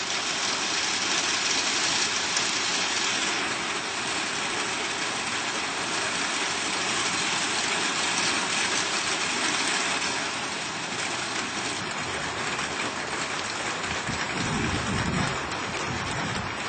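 Steady heavy rainfall, an even hiss of rain, with a low rumble of thunder beginning near the end.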